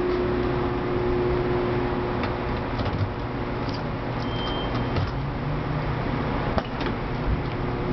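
Driver's door of a 1994 Mazda MX-5 Miata being unlocked and opened by hand. Light clicks and rattles come from the key and handle at the door lock, then a sharper click of the latch releasing about two-thirds of the way through. A steady hum runs underneath.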